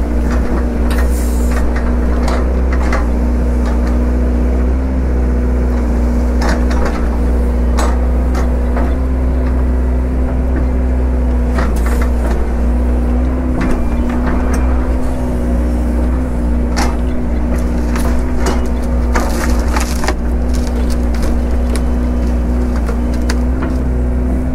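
Diesel excavator engine running steadily under load, with repeated sharp cracks and snaps of wood and brush breaking as it handles the cleared timber.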